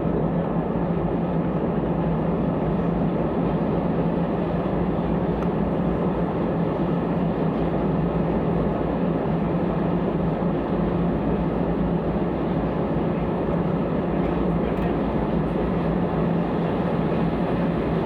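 Steady drone of an airliner's jet engines, with a constant low hum running through it and no change in level.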